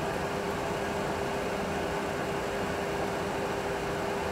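Steady cockpit noise of a Boeing 737 Classic full flight simulator: an even rushing drone of simulated airflow and engines with a constant mid-pitched hum through it.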